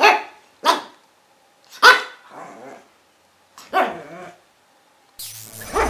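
A dog barking: four single, sharp barks spaced one to two seconds apart, some followed by a softer, quieter yelp. Near the end, music starts with a swelling whoosh.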